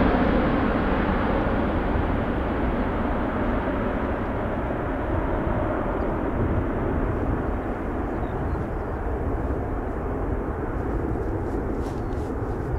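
The four jet engines of an Emirates Airbus A380-800 at climb power just after takeoff, a broad steady roar that slowly fades and dulls as the airliner climbs away.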